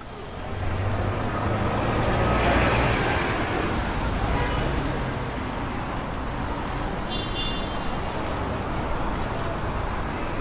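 Added city street traffic ambience: a steady wash of road noise, with an engine hum near the start and a brief high-pitched signal, like a horn or bell, about seven seconds in.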